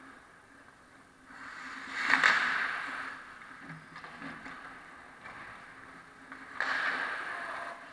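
Ice-hockey skate blades scraping on the ice close by, in two loud scrapes of about a second each: one about two seconds in and one near the end.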